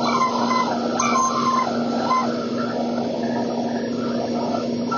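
Shopsmith bandsaw running and cutting through a block of wood with an Olson blade: a steady motor hum under the rasp of the cut, with a faint wavering squeal as the wood is fed into the blade.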